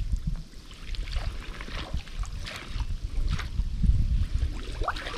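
Water sloshing, with small splashes and drips, over a low, uneven rumble on the microphone.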